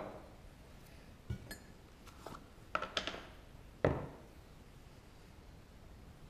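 A few short metallic clinks and knocks as copper pipe pieces and a tin of soldering flux are picked up, opened and set down on a wooden workbench, spaced about half a second to a second apart, the loudest a little before the middle.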